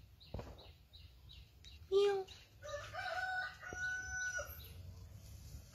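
A rooster crowing: one long drawn-out crow about three seconds in, preceded by a short loud call near two seconds and a run of faint high chirps.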